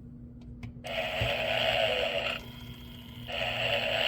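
Gemmy Snoring Santa animatronic toy snoring through its small speaker: two rough, drawn-out snoring breaths of about a second and a half each, with a short pause between them.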